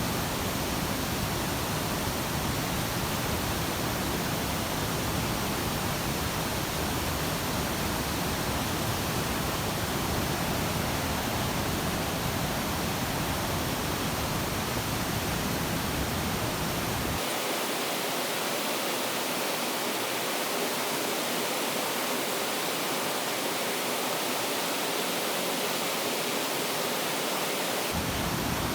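Steady rushing water noise with no distinct events. About two-thirds of the way through, the deep part of the rush drops out abruptly, leaving a thinner hiss, and it returns near the end.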